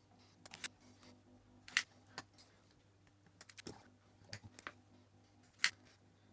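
Spring-loaded solder sucker (desoldering pump) being cocked and fired while clearing solder from circuit-board pin holes: a scattering of light clicks and a sharper snap near the end.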